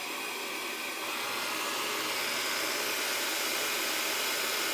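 Xiaomi Mi robot vacuum cleaner's suction fan running just after start-up: a steady whooshing hum that steps up in level about a second in, then holds.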